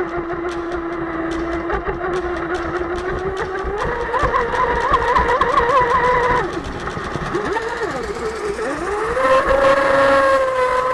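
Onboard sound of a 6S electric RC speedboat's brushless motor whining under throttle. Its pitch steps up about four seconds in, drops and slides up and down as the throttle is eased, then rises again, over a rapid patter of the hull hitting the water.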